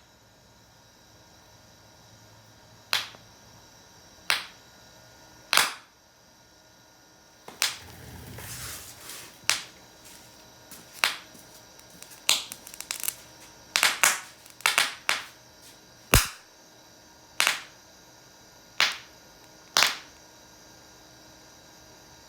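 A string of sharp bangs from a homemade firecracker substitute, about a dozen and a half, irregularly spaced and coming in quick clusters in the middle. A short rushing hiss comes about eight seconds in.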